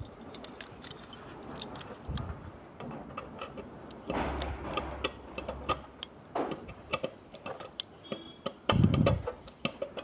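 Small flat metal tool clicking and scraping against a screw and the metal motor housing of a table fan, in scattered light ticks with a couple of brief rustling handling noises.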